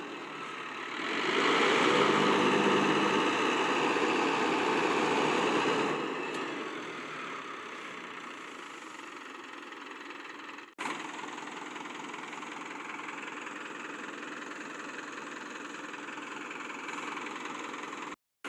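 Diesel engine of a Mahindra Novo 755 DI tractor running a tractor-mounted paddy harvester, louder for the first few seconds and then running steadily at a lower level.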